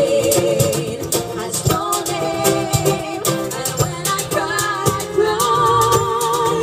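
Live band music: female vocals singing held, wavering notes over acoustic guitar, bass and hand percussion with a steady beat.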